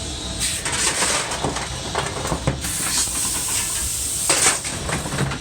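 Steady steam hiss in the cab of D&RGW No. 491, a narrow-gauge 2-8-2 steam locomotive, with irregular clanks and scrapes as the crew shovels coal into the firebox.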